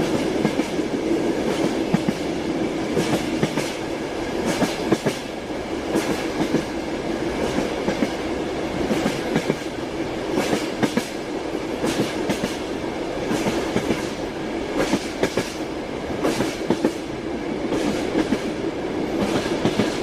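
Russian Railways train running, its wheels clattering over the rail joints: clusters of sharp clicks recurring every second or two over a steady rumble and hum.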